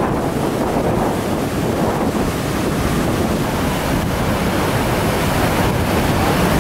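The flooded Big Sioux River rushing over the falls and rapids in a steady, loud wash of water noise, with wind buffeting the microphone.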